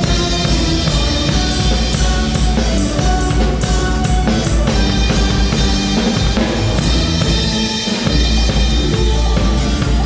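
Live band playing amplified through a PA: drum kit keeping a steady beat under keyboards, electric guitar and bass guitar. The bass and kick briefly drop out about eight seconds in, then come back.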